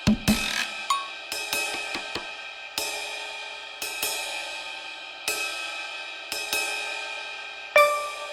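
Background music: sustained tones with a cymbal struck about every second and a half, each strike ringing away.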